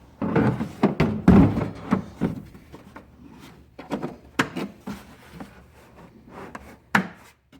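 Tools and cases being handled in a tool box drawer: a run of knocks and clatter, loudest about a second in, then scattered knocks and a sharp click near the end.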